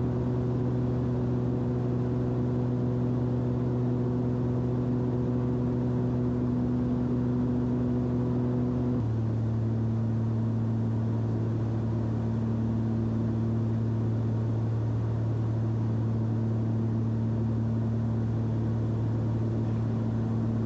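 Cessna 340's twin piston engines and propellers running in flight, a steady pitched drone heard from inside the cabin. The drone's pitch shifts slightly lower about nine seconds in.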